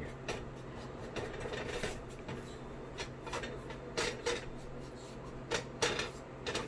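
A spatula scraping and stirring dry gram flour (besan) in a pan as it dry-roasts, in irregular scrapes and knocks. A steady low hum sits underneath.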